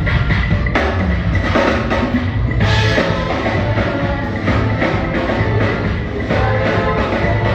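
Band music with a drum kit and bass keeping a steady beat.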